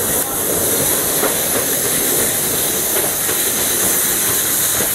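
A 10.25 inch-gauge Bullock 4-6-2 Pacific steam locomotive blowing off steam, a loud, steady hiss.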